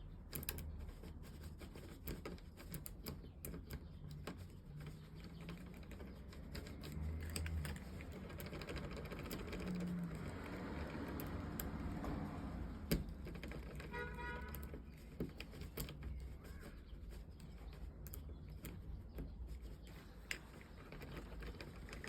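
Key being raked gently in and out and turned in a jammed Kwikset SmartKey deadbolt, making scattered small metallic clicks and scrapes. A brief pitched chirp sounds partway through.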